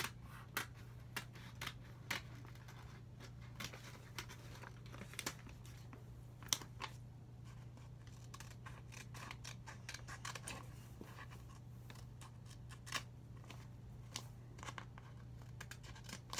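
Scissors snipping through paper: a long series of short, sharp snips at an uneven pace, faint, over a steady low hum.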